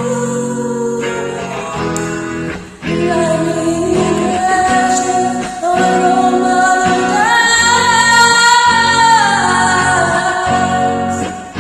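Singing over guitar accompaniment, with long held notes, the longest about seven seconds in.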